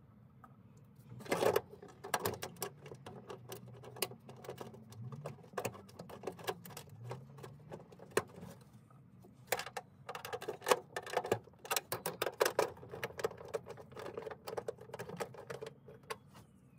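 Irregular small metallic clicks, taps and rattles as a bolt and an ignition coil's steel bracket are worked by hand against a VW engine's sheet-metal fan shroud, fitting the coil's second mounting bolt. The clicking is sparse at first and comes thick and fast over the last few seconds.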